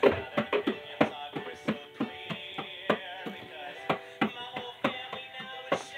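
A pair of bongos played with bare hands: a quick, uneven run of strikes, about four a second, with held musical tones underneath.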